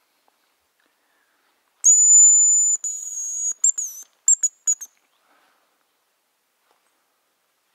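Hazel grouse decoy whistle blown close by: one long, thin, very high whistle held for about two seconds and dipping at its end, then a few short quick notes, imitating the male hazel grouse's song to call a bird in.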